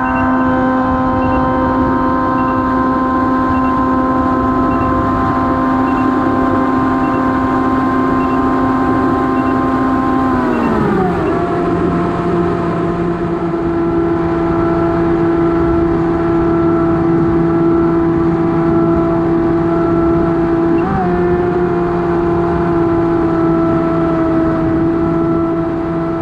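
Electric motor and propeller of an AtomRC Dolphin FPV plane running at a steady high whine over a rush of air. About ten seconds in, the pitch glides down as the throttle comes back, then holds steady at the lower pitch, with a brief blip near the end. A faint beep repeats about once a second during the first ten seconds.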